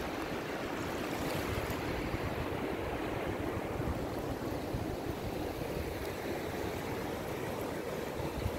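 Steady wash of sea surf on a beach, with a low rumble of wind on the microphone.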